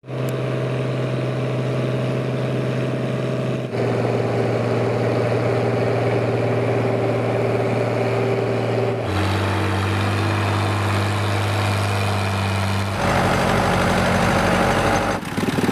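Fiat tractor engines running steadily under load, heard as a run of clips that cut abruptly several times, each at a different steady engine pitch.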